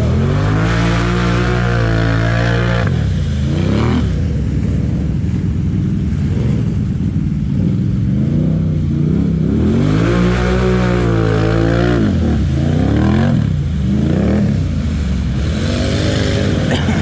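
Quad bike (ATV) engines revving hard as they push through deep mud and water. The pitch climbs and falls with the throttle, and the engines hold high revs about half a second in and again around ten seconds in.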